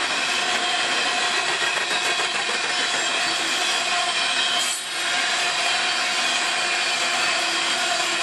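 Coal cars of a long freight train rolling past at speed: steady rush and clatter of steel wheels on rail, with continuous high squealing tones from the wheels, dipping briefly a little under five seconds in.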